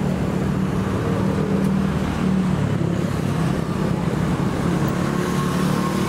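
Steady road traffic, with vehicle engines running close by as a constant low hum.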